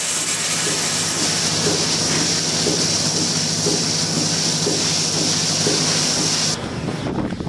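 Lely Astronaut milking robot rinsing its teat-cleaning brushes: a steady, high hiss of water spraying from the nozzle over a steady low machine hum. Both cut off suddenly near the end.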